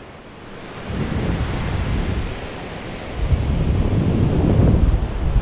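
Surf breaking and washing up the beach, with wind buffeting the microphone in gusts that swell about a second in and again about three seconds in.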